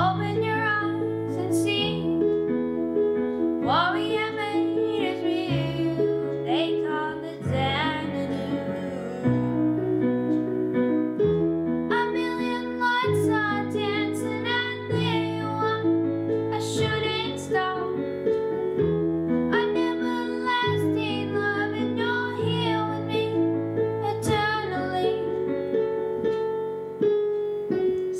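A boy singing while accompanying himself on a digital piano, the chords changing every second or two under the sung phrases.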